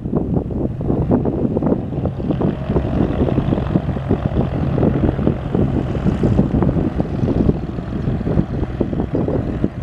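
Cessna 182 Skylane's single piston engine idling with a steady low drone as the plane taxis, half buried under heavy wind buffeting on the microphone.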